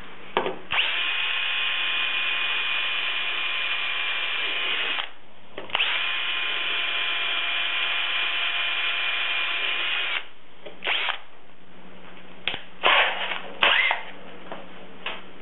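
Cordless drill with a 9/64-inch bit boring through the stainless steel hinge plate and kiln lid: two steady whines of about four seconds each, with a short pause between them, for the two holes. A few short clatters follow near the end.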